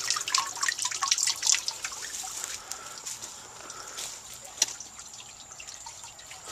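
Water dripping and trickling in irregular drips and splashes, with one sharper drip or tick about two-thirds through.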